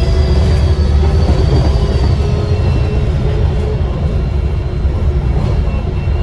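Diesel bus engine and drivetrain running under way, heard from inside the bus, with a high whistle that slides down in pitch over the first three seconds.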